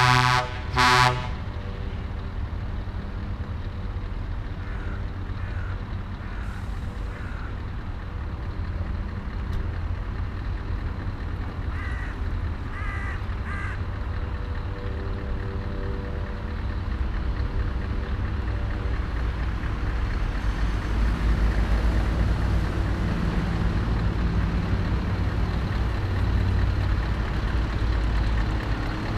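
A truck air horn cuts off at the start and gives one more short blast about a second in. Then comes the steady low rumble of heavy lorry diesel engines, growing louder over the last ten seconds as a convoy of trucks approaches. Crows caw a few times in the middle.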